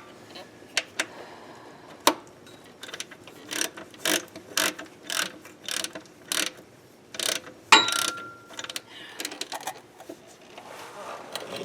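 Socket ratchet wrench clicking in irregular strokes as a starter mounting bolt is tightened, with a brief ringing clink of metal about eight seconds in.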